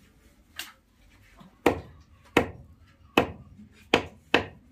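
Large knife chopping raw mithun meat on a wooden log chopping block: a light stroke under a second in, then five sharp, irregularly spaced chops, the last two in quick succession.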